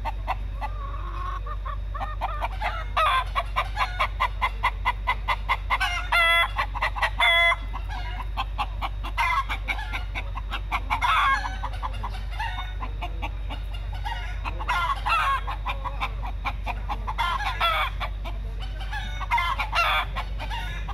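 Domestic chickens, a rooster with hens, clucking in fast runs of short notes, about five a second, broken by several louder, longer calls. The chickens are courting.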